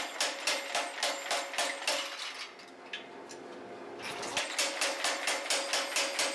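Power hammer striking a hot wrought iron billet in a fast, even run of blows, about three a second, to draw it out into a bar. The blows stop for about a second and a half midway, leaving the machine's running hum, then start again.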